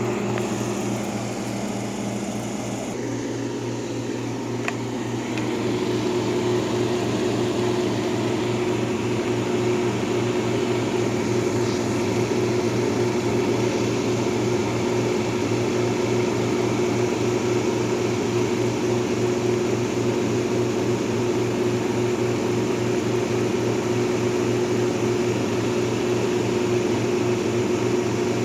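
1958 Carrier 4,500 BTU window air conditioner running and blowing cold, a steady low hum under its fan's air noise. About three seconds in the sound shifts, and from about five and a half seconds a steady higher hum joins in and it gets slightly louder.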